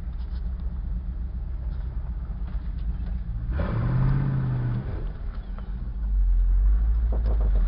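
Off-road truck engine running with a low rumble inside the cab; about three and a half seconds in it revs up briefly and holds, and from about six seconds the low rumble gets heavier.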